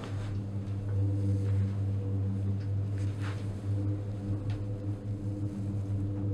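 Steady low mechanical hum heard from inside a gondola lift cabin riding the cable, with a few faint brief hisses.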